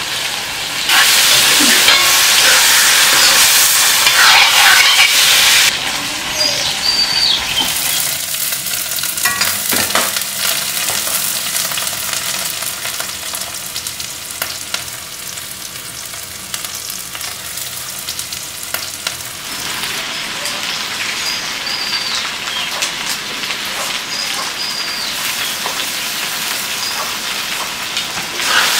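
Chicken sizzling and frying in a black iron wok over a wood fire, with a metal ladle stirring it. The sizzle is loudest for the first few seconds, then settles to a steadier, quieter frying hiss with small clicks.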